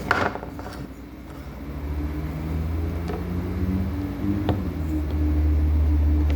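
A motor vehicle's engine rumbling low and steady, growing louder over the first couple of seconds, with a click right at the start.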